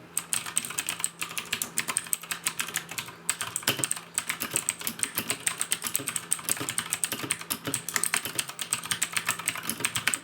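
Typing on a Redragon K552 mechanical keyboard with Outemu Blue clicky switches: a fast, continuous run of loud, clicky keystrokes.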